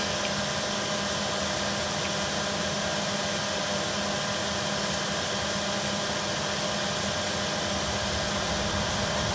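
Steady mechanical hum with a few faint constant tones and no distinct events.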